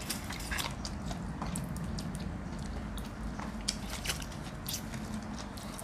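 A person eating stir-fried clams, sucking the meat from the shells and chewing, with scattered small clicks over a steady low hum.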